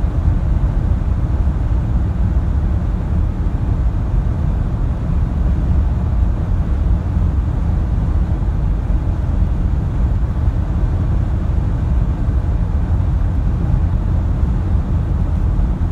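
Cabin noise of a 2019 Audi e-tron 55 cruising flat out at its top speed of about 200 km/h: a steady, loud low rumble of wind and tyre noise.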